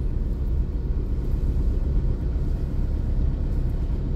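Steady low engine rumble, heard from inside a car's cabin on a ferry's enclosed car deck.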